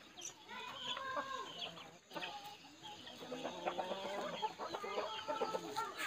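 Chickens clucking: short, repeated clucks that come thicker in the second half.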